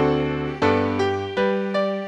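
Piano playing slow chords, three struck one after another in turn, each ringing on and fading before the next.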